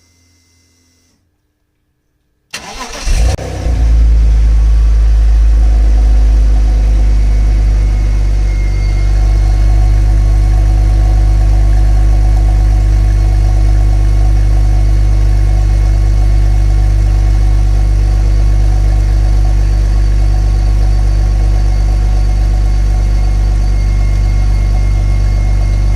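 BMW E46 320Ci's 2.2-litre M54B22 inline-six cold-starting through its stock exhaust. After a faint hum and a pause, the starter cranks briefly about two and a half seconds in, the engine catches with a short rev flare, then settles into a steady idle that drops slightly about eight seconds in.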